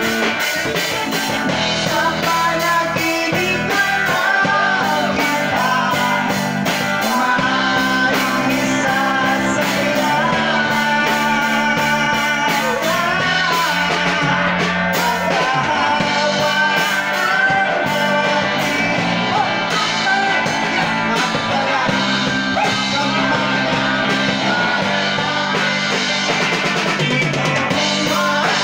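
Live rock band playing: a singer on microphone over guitar and a drum kit keeping a steady beat.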